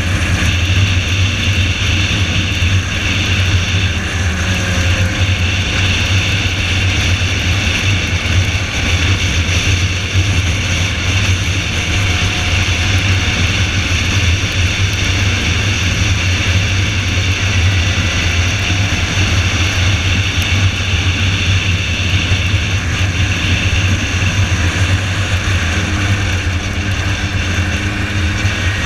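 Car engine running with road noise in a steady loud drone.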